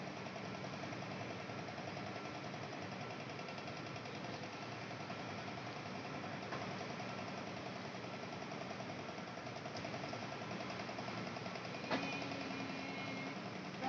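Gantry milling machine running: a steady mechanical hum with a fast, even pulsing. A short knock sounds about twelve seconds in.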